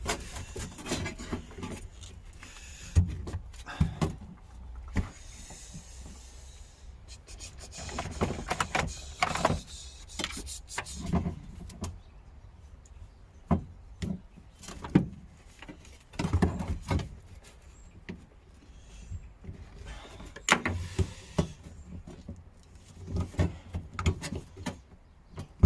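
Irregular clicks, knocks and rustling of hands working at a Nissan Micra's fuel pump, pulling its wiring connectors and wires out of the way.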